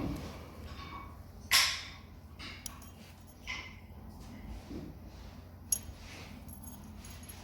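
Scattered clinks and knocks of metal tools and engine parts being handled, with one louder, short rasping burst about a second and a half in and a sharp click near the end.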